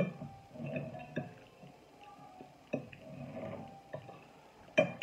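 Metal fork clinking and scraping on a glass plate, a few sharp clinks with the loudest near the end, between close-up chewing and mouth sounds.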